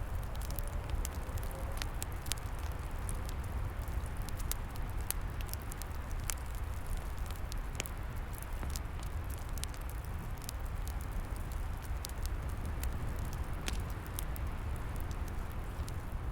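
Wood fire crackling, with frequent sharp irregular pops and snaps over a steady low rush of wind.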